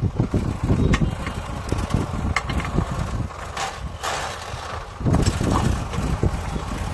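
Sonalika DI 745 III tractor's 3067 cc diesel engine running as it pulls a rear-mounted tine cultivator through the soil. The low rumble is uneven, with scattered clicks.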